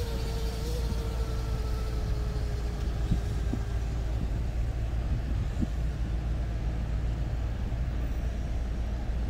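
Slow-moving car traffic passing in a queue: a steady low rumble, with a faint whine that slides slightly lower and fades out about four seconds in.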